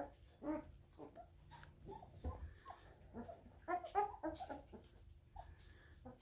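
Labrador puppies yipping and squeaking in short bursts as they play, the calls coming in a few clusters and busiest in the middle, with a soft knock a little after two seconds.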